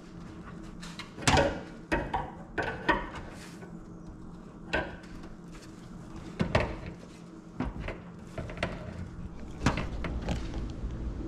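Scattered clicks and clanks of a wrench on the brass fittings while the corrugated stainless water supply lines are tightened on top of a water heater, over a low steady hum.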